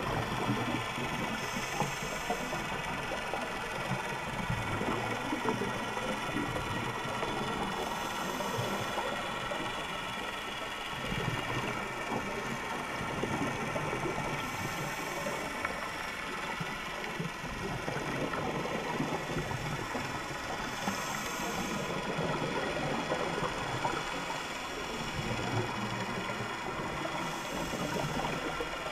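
Underwater: a steady motor whine runs throughout, under a scuba regulator's hiss that comes about every six seconds, once per breath.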